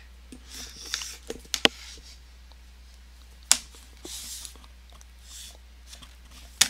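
Protective plastic backing, held on with tape, being peeled off the back of a metal Blu-ray steelbook case: soft rustling and peeling hisses broken by several sharp clicks and taps, the loudest about a second and a half in and just before the end.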